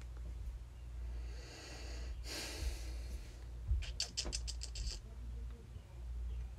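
A short sharp breath through the nose, then a quick run of about eight light clicks over about a second, over a low steady room hum.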